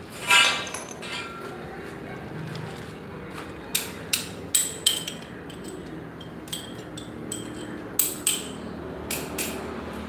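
Sharp metallic knocks, each with a short ring: a quick run of five about four seconds in and four more near the end. A brief, loud high-pitched squeak at the very start.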